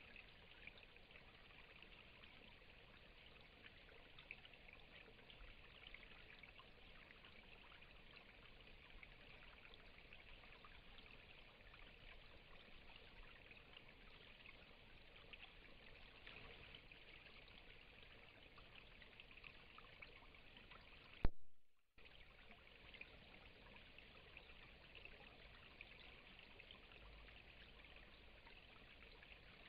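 Near silence: a faint steady hiss of recording noise. About two-thirds of the way through, a single sharp click is followed by a moment of dead silence before the hiss comes back.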